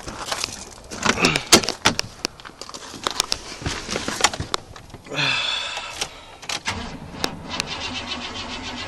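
Keys jangling, with a run of small clicks and rattles.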